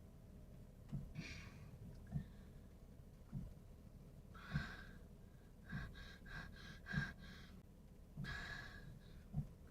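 A person breathing audibly in slow, sighing breaths, three times, with a quick run of short breathy pulses in the middle. A soft low thump repeats about once a second underneath.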